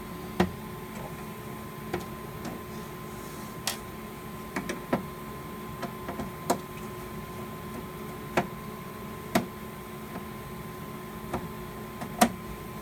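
Scattered sharp clicks and knocks from hands and tools working on a fire alarm panel's metal cabinet and parts, coming at uneven intervals, over a steady faint electrical hum with a thin constant tone.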